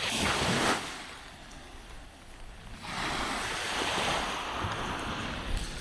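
Small waves washing up on a sandy beach: one short wash at the start, then a longer one swelling from about three seconds in.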